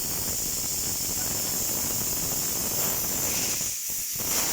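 Steady hiss of compressed air at a truck tyre change, over a rough low rumble that drops out briefly near the end.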